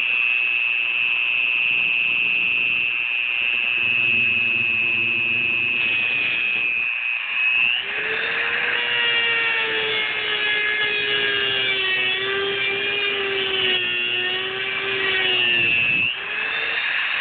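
Dremel rotary tool with an abrasive cutoff wheel whining at high speed. About eight seconds in, the wheel bites into the EGR modulator valve's housing and grinds, and its pitch drops under load and wavers. Near the end the tool comes off the cut and its pitch rises again.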